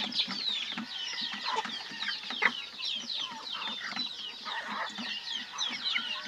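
A flock of young chickens peeping and clucking as they feed: many short, high, falling calls overlapping without a break, over lower clucks.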